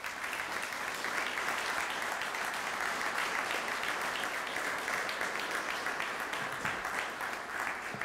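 Audience applauding, steady for several seconds, then thinning out near the end.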